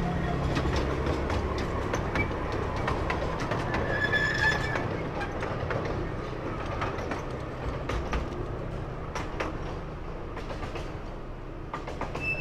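Miniature railway train rolling past, its wheels clicking over the rail joints, with a brief high-pitched squeal about four seconds in. The rumble fades as the train pulls away.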